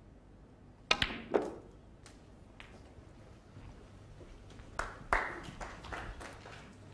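Snooker shot: the cue tip strikes the cue ball about a second in, then sharp clicks of ball on ball as the black is potted. Around five seconds in there is another cluster of ball clicks as the cue ball runs on among the balls.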